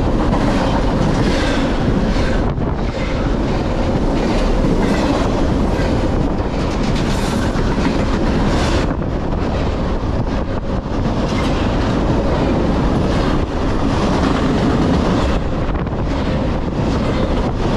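Double-stack intermodal container well cars of a freight train passing at speed close by: a steady loud rumble of steel wheels on the rails, with many quick clicks as the wheels run over the rail joints.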